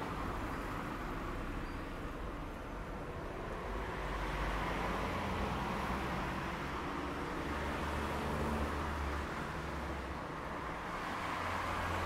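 Rush-hour street traffic: a steady wash of car engines and tyre noise, with a low engine rumble that swells and eases every few seconds as vehicles pass.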